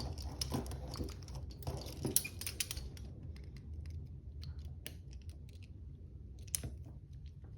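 Faint, irregular small metallic clicks and scratches of a pick working inside the keyhole of a double-locked handcuff.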